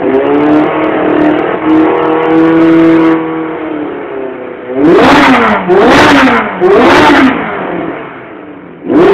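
Yamaha FJ1100 inline-four motorcycle engine held at high revs for about three seconds, then dropping back, followed by three sharp throttle blips about a second apart, each rising and falling in pitch, with another blip near the end.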